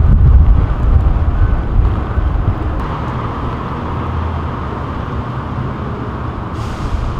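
Street traffic noise with wind gusting on the microphone, a heavy low rumble that is strongest in the first second or so.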